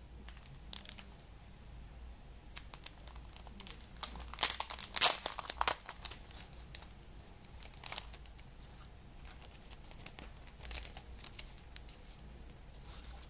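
Clear plastic wrapping crinkling and crackling as it is handled and pulled off a cardboard CD sleeve by hand, in scattered bursts, loudest about five seconds in.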